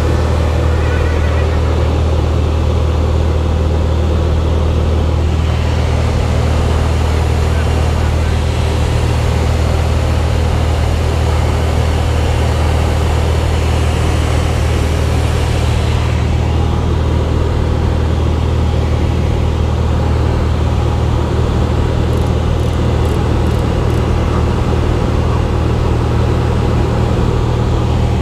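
Steady drone of a Cessna 180's six-cylinder piston engine and propeller in cruise flight, heard from inside the cabin as a deep, even hum with airflow hiss over it.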